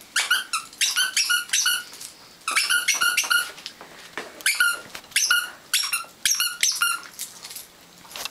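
A squeaky toy ball being chewed by a Siberian husky puppy: it squeaks in quick runs, about six bursts of rapid squeaks, each at one steady pitch.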